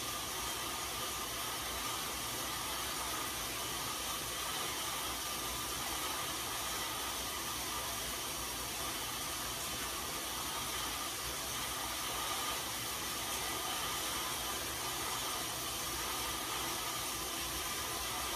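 Steady whirring hiss of a road bike's tyres and roller drums spinning on indoor rollers at an easy cool-down cadence, with a faint steady hum running through it.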